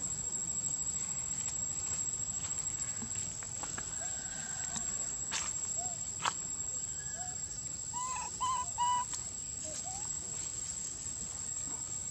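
A few short, high animal calls, three in quick succession about eight seconds in, over a steady high-pitched insect drone and outdoor background hiss.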